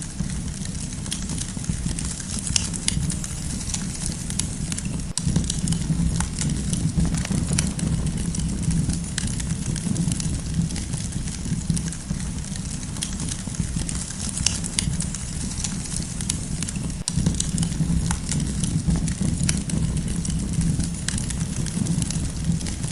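Wood campfire crackling, with frequent small snaps and pops over a steady low rush of burning.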